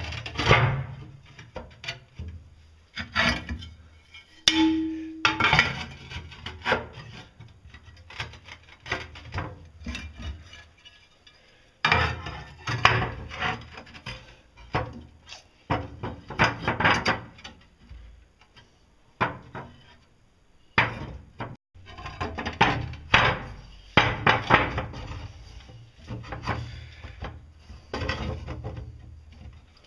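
Ceramic tile pieces being slid, scraped and knocked against each other as they are pressed by hand into the bottom of a tile sink: irregular scrapes and clacks, busiest in two spells with a short lull between.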